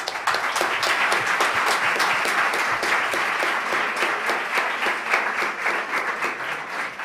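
An audience applauding, a dense patter of many hands clapping that starts at once, holds steady, then thins a little toward the end.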